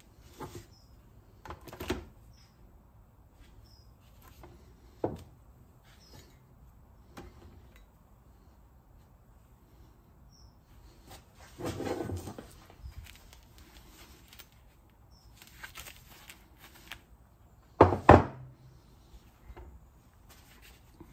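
Knocks and clunks of a cast aluminium bronze plaque and metal bar being set down on and lifted from a digital kitchen scale on a wooden bench, with a longer scuffle of handling about 12 s in and the loudest, a sharp double knock, about 18 s in.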